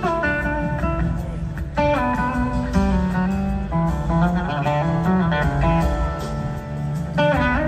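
Live blues-rock band playing an instrumental jam, with an electric guitar leading in quick melodic runs over bass, keyboards and drums.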